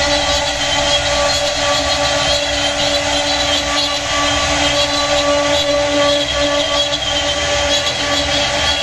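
Four high-speed spindles of a CNC router running together with a steady, several-toned whine while their bits carve relief patterns into wooden panels, over a rough cutting noise.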